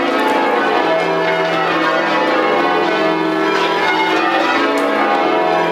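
Hexham Abbey's ring of ten church bells ringing rounds, the bells struck one after another in steady order from the highest to the lowest, over and over, their tones overlapping into a continuous ringing.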